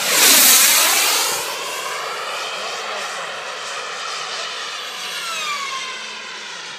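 Turbine of a radio-controlled Boomerang model jet making a low, fast pass. A loud rushing whine peaks about half a second in and drops in pitch as the jet goes by, then settles into a fainter, steady whine as it flies away.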